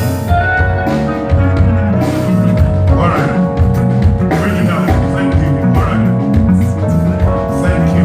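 A live band playing: guitar over held chords and a pulsing bass line, without a break.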